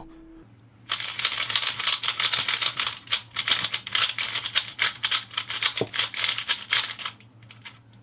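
A QiYi Valk 3 speedcube turned rapidly by hand: a fast, continuous clatter of clicking hard plastic layers that starts about a second in and stops near the end.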